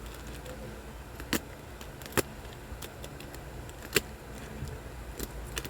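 Small hard items being handled, giving three sharp clicks with fainter taps between them, over a steady low hum.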